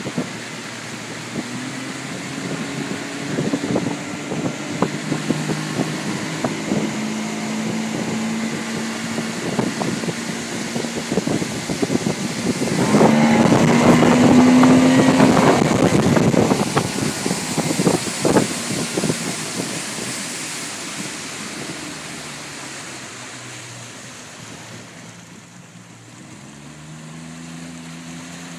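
Yamaha 40 hp outboard motor running under way, its steady engine note mixed with the rush of the wake and wind buffeting. The sound is loudest about halfway through. Near the end the engine note drops away, then rises again.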